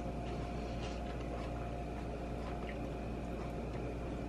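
Faint wet chewing of a bite of falafel lettuce wrap, with a few soft clicks and squishes, over a steady hum.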